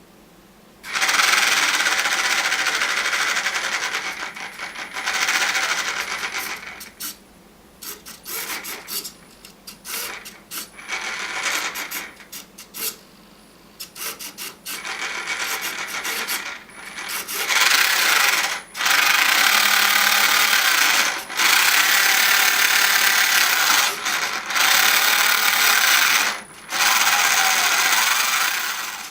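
Small electric motor and gearbox of a toy RC car running in stop-start bursts, some short, some several seconds long, a harsh grinding whir.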